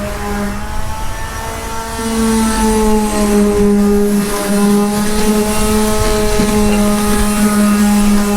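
Electric sander's motor running steadily with a strong even hum, getting louder about two seconds in.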